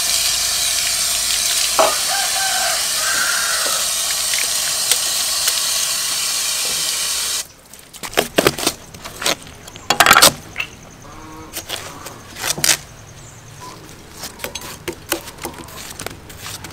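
Water pouring steadily from a garden tap over a watermelon as it is rinsed, cutting off abruptly about seven seconds in. Then a knife cuts through the watermelon on a wooden chopping board: a string of sharp crunches, cracks and knocks.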